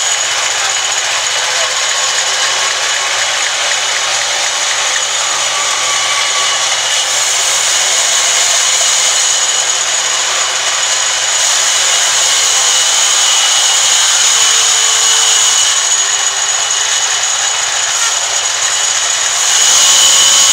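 Sawmill band saw blade cutting lengthwise through a large log: a loud, steady, high sawing noise with two steady high-pitched tones in it, growing louder shortly before the end.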